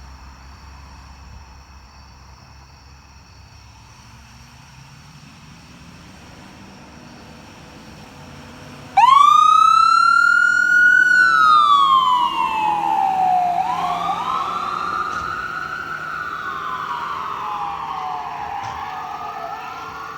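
Emergency siren of a fire department medic unit, switched on suddenly about halfway through. It wails, rising quickly in pitch, then sliding slowly down and rising again, with a second wail overlapping it. Before it starts there is only a low, steady vehicle rumble.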